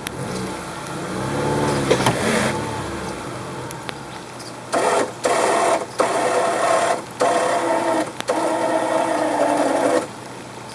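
A vehicle engine revs up and back down once, then an electric winch motor runs in several on-off bursts with a steady whine, hauling under load.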